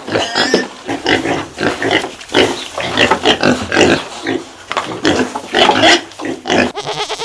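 Pigs grunting, a close, irregular string of short calls that follow one another without a break.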